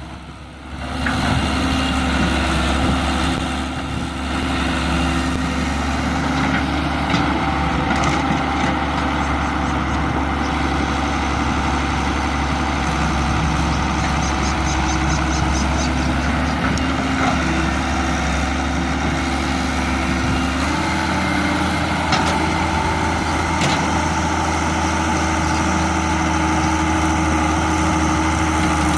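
Halla excavator's diesel engine running steadily, its low note shifting slightly a little after two-thirds through, with a few sharp knocks.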